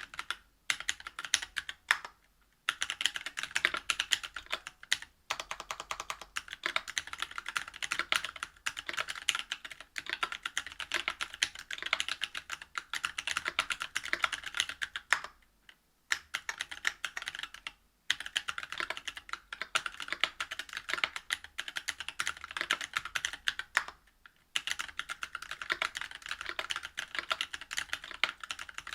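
Steady typing on a Whale 75 mechanical keyboard fitted with stock Cannonkeys Lilac Tactile 65g switches, a brass plate and GMK keycaps. Fast runs of keystrokes are broken by several brief pauses.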